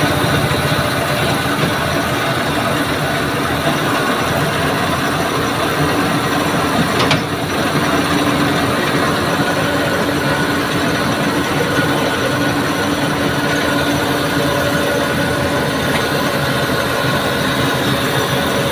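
A crane truck's diesel engine running steadily at idle, with one brief knock about seven seconds in.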